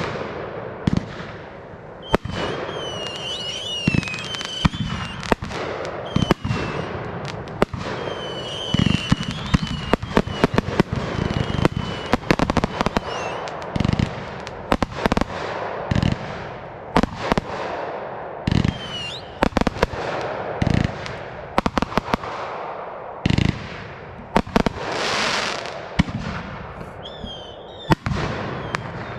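Aerial fireworks display: shells launching and bursting in rapid, irregular succession with crackling between the bangs. High wavering whistles recur, and a rushing hiss swells about 25 seconds in.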